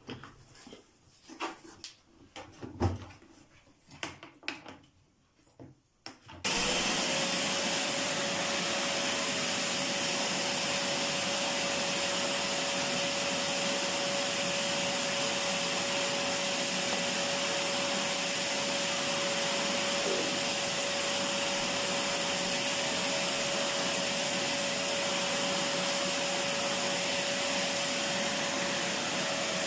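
A few handling knocks and clicks, then about six seconds in a Titan wet and dry vacuum cleaner switches on abruptly and runs at a steady pitch, sucking up spilled water.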